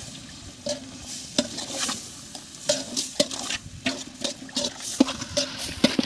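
Metal ladle stirring mushrooms and masala in a large aluminium pot, with irregular scrapes and knocks of the ladle against the pot and frying in oil beneath. Hands swish water in a nearby basin as more mushrooms are washed.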